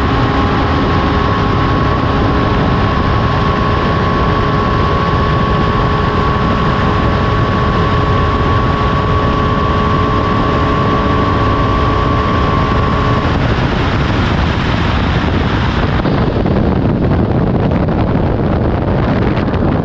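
BMW GS boxer-twin motorcycle at sustained high speed, heard through heavy wind noise on the microphone, its engine holding one steady pitch. About two-thirds of the way through the engine tone fades out, and near the end the wind noise turns duller.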